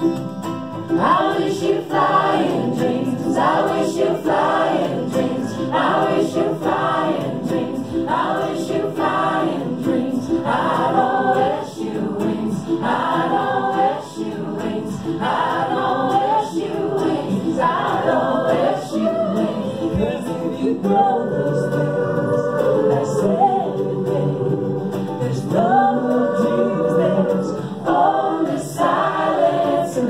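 A choir of teenage voices singing a song together, accompanied by an acoustic guitar.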